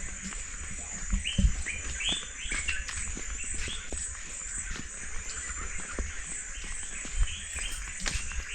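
Birds chirping in a quick run of short, repeated high calls, then more near the end, over a steady high hiss and low rumble, with a couple of soft knocks.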